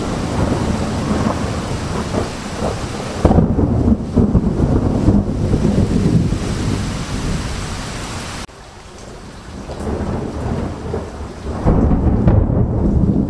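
Thunderstorm: rolling thunder over steady rain. A loud rumble breaks in sharply about three seconds in. The sound drops off abruptly about eight and a half seconds in, then builds back to another heavy rumble near the end.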